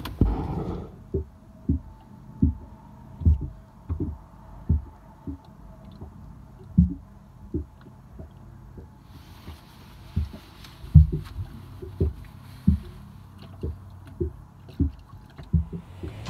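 Small waves slapping against a boat's hull: short low thumps about every second, unevenly spaced, over a faint steady hum.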